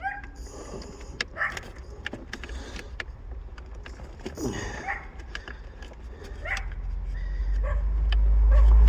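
Scattered small clicks and taps of a metal pick working the plastic clips and trim of a car's automatic gear shifter surround. A low rumble builds over the last few seconds and becomes the loudest sound.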